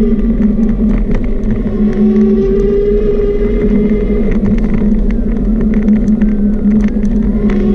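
Steady motor hum with a few pitched tones that sag and rise slightly, and scattered small clicks and rattles, from the vehicle carrying the camera along a paved path.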